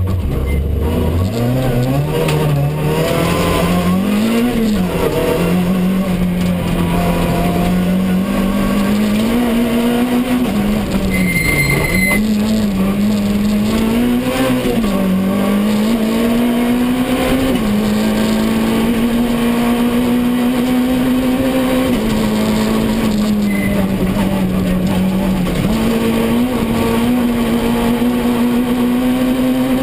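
Citroën C2 R2 rally car's 1.6-litre four-cylinder engine heard from inside the cabin, driven hard on a stage. The engine note climbs and drops repeatedly with the gear changes, with a long steady high stretch in the middle.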